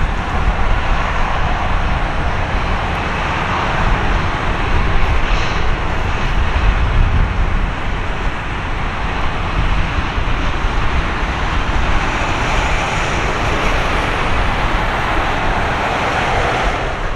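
Boeing 737-800's CFM56-7B turbofan engines running at low power as the airliner slows and taxis off the runway after landing: a steady jet rumble and rush with no speech.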